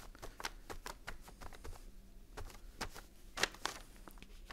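Paint sponge dabbed through a stencil onto a kraft paper bag: quick light taps and pats on the paper, several a second at first, then a few spaced, louder ones in the second half.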